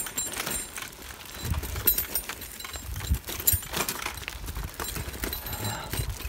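Raleigh Courier bicycle rattling and clinking as it is ridden over a rough dirt track, with many small irregular knocks over a low rumble.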